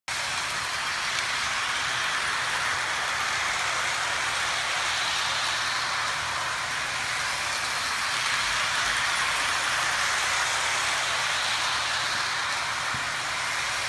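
Lionel model train running steadily around its track: a continuous even whirring noise of motor and wheels on the rails, with a faint low hum under it.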